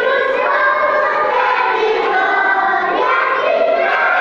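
A group of young children singing together in unison, holding long notes, with a brief break between phrases about three seconds in.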